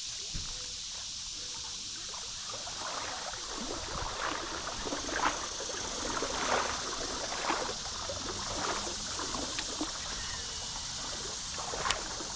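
Steady rush of creek water with a run of irregular splashes and gurgles on the surface from about three seconds in until about ten seconds in, then a single sharp click near the end.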